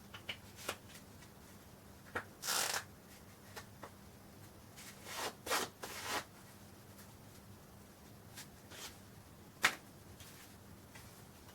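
Quiet handling noises: scattered small clicks and a few short rustling bursts, with one sharper click near the end.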